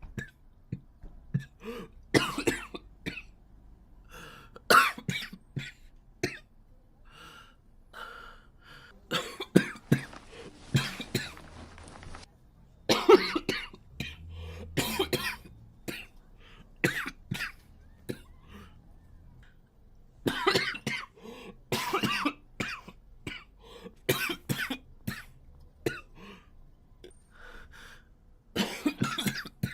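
A boy coughing again and again: short coughs singly or in quick runs of two or three, every second or few, with a longer noisy fit about ten seconds in.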